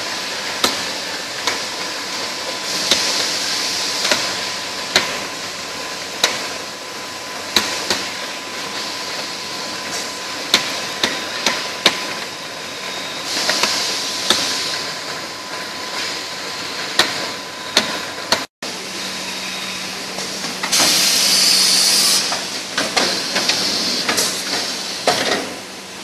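PET bottle filling line machinery running: a steady mechanical din with irregular sharp clicks and knocks and a faint steady whine, and several bursts of hiss, the loudest about twenty seconds in.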